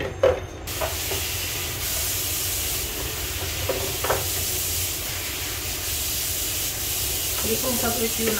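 A steady, loud hiss that starts abruptly about a second in, with a few light clicks of eggs knocking together as they are taken from the refrigerator door shelves and handled.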